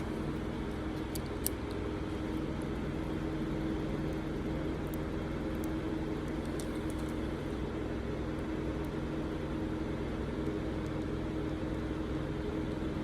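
Steady low machine hum with a few faint, light clicks of small lighter parts being handled.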